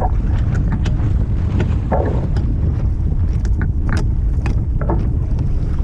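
Wind buffeting the microphone in a heavy, steady low rumble while a Sprint 15 catamaran sails, with frequent short, sharp splashes of water against the hulls.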